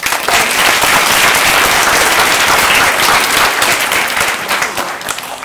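Audience of schoolchildren clapping, many hands at once. The clapping is loud and thins out near the end.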